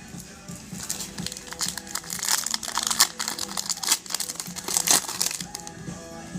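Foil wrapper of a Panini football trading-card pack crinkling and tearing as it is ripped open, loudest near the middle and again near the end, over background music.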